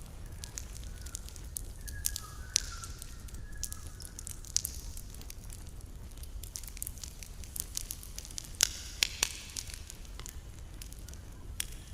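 Campfire burning, with irregular crackles and sharp pops of the wood over a steady low rumble, the loudest pops in a quick cluster about two-thirds of the way in. A faint wavering whistle sounds in the first few seconds.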